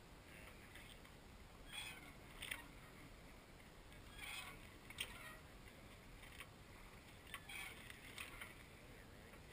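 Faint water splashing and washing against a sailboat's hull under way, in irregular short swishes a second or two apart, over a low steady rumble of wind on the microphone.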